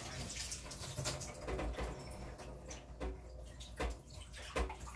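Water from a kitchen tap running into a stainless steel sink while gloved hands wash something under it, with a few small knocks and clatters in the basin.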